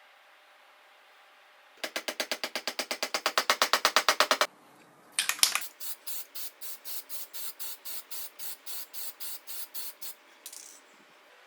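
Rhythmic hissing rubbing strokes, as from hand work on the chisel. A fast run of about nine strokes a second grows louder, stops, and after a single burst gives way to a steadier run of about four strokes a second.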